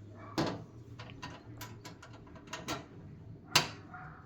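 Metal hand tools in a toolbox drawer clicking and clinking as they are handled: a run of irregular light clicks, with a louder clack just after the start and another about three and a half seconds in.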